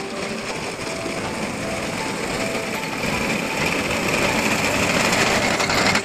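Tractor engine running with the fast clatter of a front-mounted reaper's cutter bar as it cuts standing wheat. It grows louder over the last few seconds as the machine comes closer, then cuts off abruptly.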